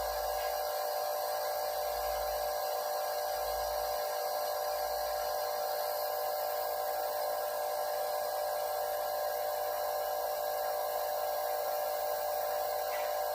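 A small machine running with a steady, even hum that does not change.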